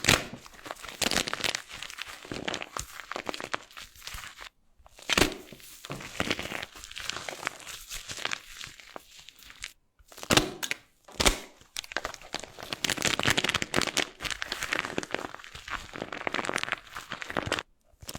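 Dry soap being broken up, crackling and crunching in dense runs of small cracks, in several takes separated by brief silences.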